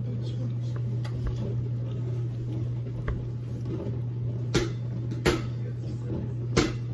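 A steady low hum with three sharp knocks: two about two-thirds of the way through and one near the end.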